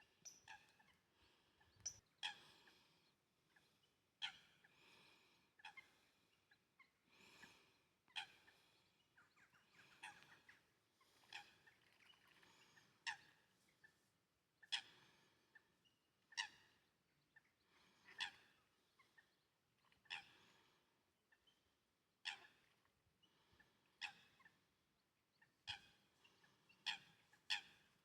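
Birds calling: short, sharp calls repeated every second or two, some in quick pairs.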